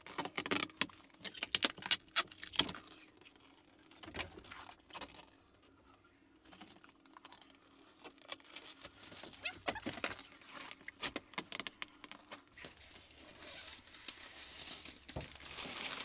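Protective plastic film being peeled off a new acrylic window, crackling and tearing in quick runs of sharp clicks. The crackling is dense at first, pauses near-quiet in the middle, then comes back as scattered crackles and crinkling of the loose film.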